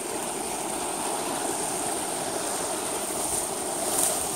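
Steady rush of flowing river water, with dry reed stalks rustling and brushing past the phone about four seconds in.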